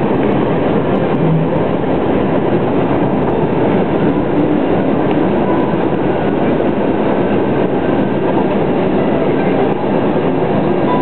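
Steady cabin noise inside a McDonnell Douglas MD-11 airliner taxiing on a wet taxiway after landing: the jet engines' drone at low taxi power mixed with the rumble of the landing gear rolling.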